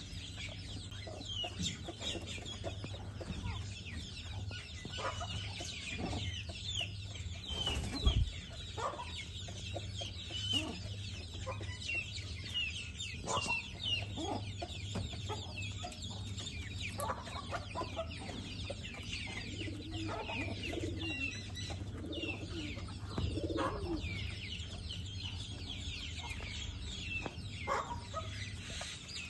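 Birds chirping over and over in many short rising chirps, above a low steady hum, with a single sharp knock about eight seconds in.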